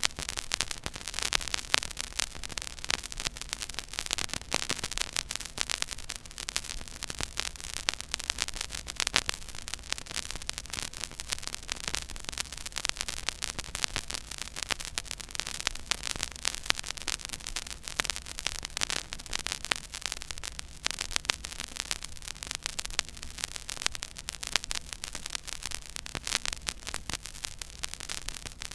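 Stylus tracking the silent run of a 12-inch 33⅓ rpm vinyl record: dense, irregular surface crackle and pops over a faint steady hum.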